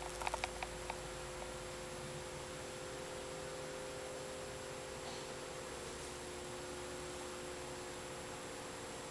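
Room tone: a steady hiss with a low hum, and a few soft clicks in the first second.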